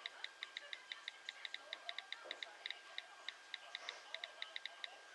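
iPhone on-screen keyboard key clicks as text is typed: short, sharp ticks, several a second in quick, uneven runs.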